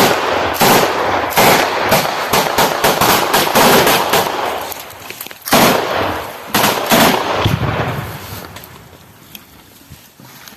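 Machine-gun fire: a dense run of rapid shots for about five seconds, then a few heavier separate shots, the firing dying away over the last few seconds.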